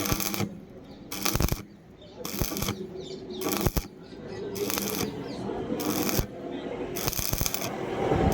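Electric arc welding crackling in short bursts as the arc is struck and broken, then held steadier in the second half.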